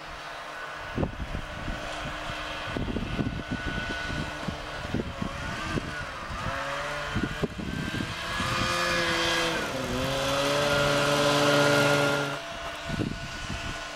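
Ockelbo Poro snowmobile engine running as it works through deep snow: uneven and rough at first, then revving up about six seconds in, held high with a brief dip, and dropping back near the end.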